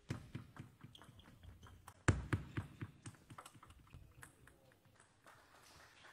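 Table tennis rally: the ball clicking off bats and table in quick, uneven succession, with one hit much louder than the rest about two seconds in. The clicks stop near the end, and a soft murmur of crowd noise follows.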